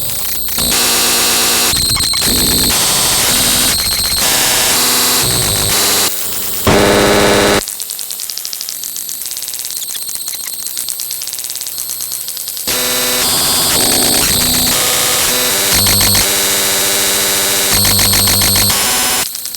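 Loud, harsh electronic static and buzzing noise that switches abruptly from one texture to another every second or two. A thinner, mostly high hiss fills a stretch in the middle.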